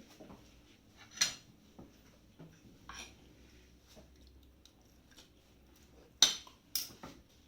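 Spoon clinking against a plate while eating: one sharp clink about a second in, two more near the end, and light clatter between.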